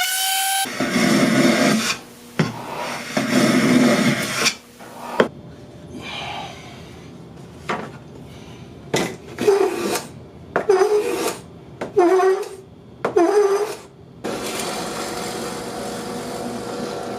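Sandpaper being worked by hand over wooden drawer parts: a series of separate rasping strokes, some longer and some short, then a steadier run of rubbing for the last few seconds.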